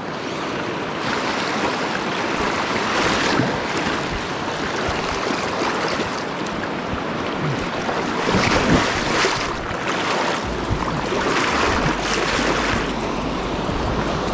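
Flowing water of a shallow, rocky mountain river, a steady rush with several louder splashing swells as someone wades through it. A low wind rumble on the microphone joins in over the last few seconds.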